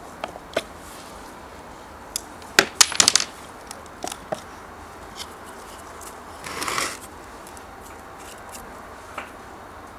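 Small hard metal parts clinking and knocking as they are handled, with a quick run of loud clinks about three seconds in and a brief scraping rustle a little before seven seconds.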